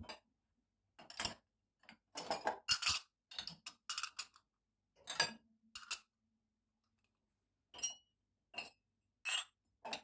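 Porcelain bowls and mugs clinking and knocking against each other and the dishwasher's wire rack as they are lifted out: a quick cluster of knocks, then single clinks every second or so, one ringing briefly.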